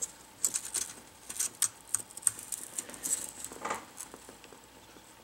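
Metal spudger prying a laptop's plastic screen bezel up from its adhesive: an uneven run of small, sharp clicks and crackles that thins out about three and a half seconds in.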